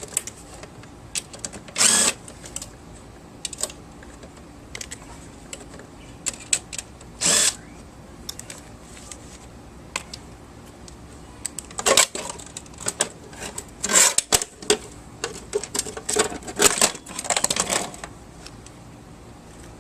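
A cordless drill unscrewing fasteners from a garage door opener in short bursts of about half a second, with clicks and clatter of screws and metal parts being handled between them, busiest in the second half.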